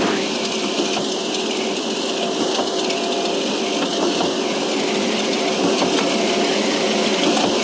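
Construction machinery running steadily, with a rattling mechanical noise, a couple of faint steady hums and scattered light ticks.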